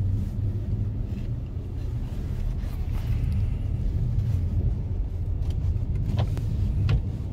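Steady low rumble of a car heard from inside the cabin, with two short clicks near the end.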